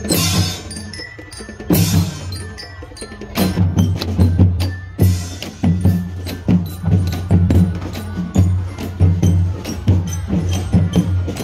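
Marching drum band playing a fast, regular beat: deep bass drums under sharp snare-drum strokes, with two cymbal crashes in the first two seconds.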